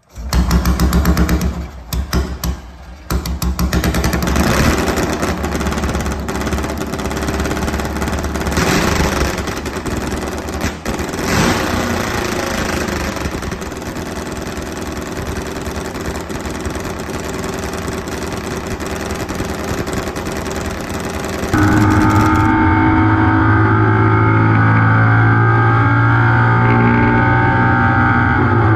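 Freshly rebuilt BMW 700 air-cooled flat-twin engine firing up, stumbling for the first few seconds, then running steadily with a couple of throttle blips. About three quarters of the way through it cuts to the engine held at high, steady revs on the race track, heard from onboard.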